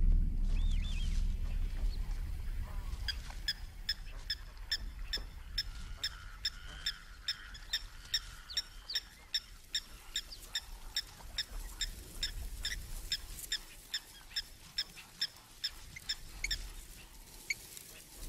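A flock of guinea fowl calling: a long run of short, clipped calls repeating at about two to three a second. A deep low rumble fades out over the first few seconds.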